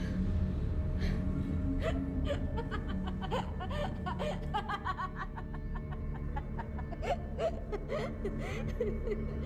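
A woman laughing softly in short, breathy giggles over a low, dark film-score drone.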